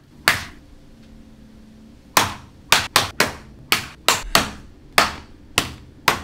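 Chef's knife hacking into the top of a husked young coconut on a cutting board. About ten sharp chops: one alone near the start, then an irregular run from about two seconds in.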